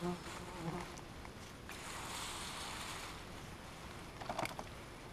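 An insect buzzing briefly close by in the first second, over a rustle of grass.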